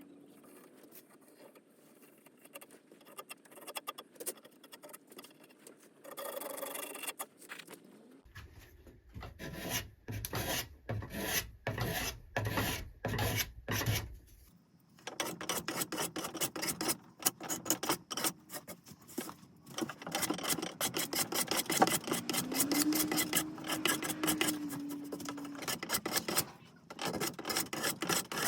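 A hand rasp scraping over wood in repeated strokes. After a quieter start come slow, separate strokes about two every second or so, then a short pause and a fast, continuous run of short strokes.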